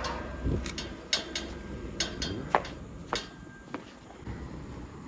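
A series of sharp clicks and knocks, about nine spread irregularly over five seconds, over a low background hum.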